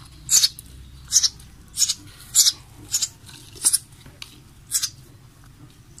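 Eurasian tree sparrow chick giving short, harsh, high begging chirps, repeated about every half second or so while it is being hand-fed.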